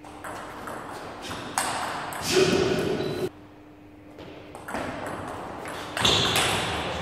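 Table tennis ball in a rally: paddles strike the ball and it bounces on the table, a run of sharp pings.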